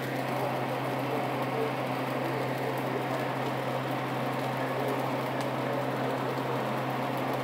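Fried rice cooking in a wide pan on the stove as it is stirred and tossed with a wooden spatula: a steady, even noise with a few faint clicks, over a constant low hum.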